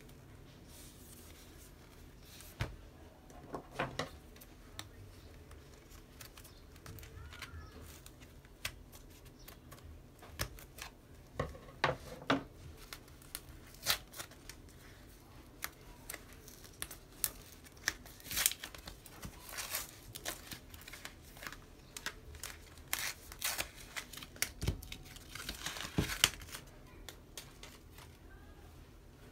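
Cardboard packaging band being handled and worked off a bundle of socks: irregular rustling and crinkling with scattered light clicks. The noises grow busier and louder in the second half.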